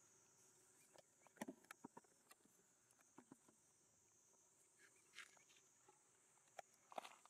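Near silence: a faint steady high insect drone, with scattered soft taps and scuffs of macaques' feet on asphalt, a cluster about a second in and another near the end.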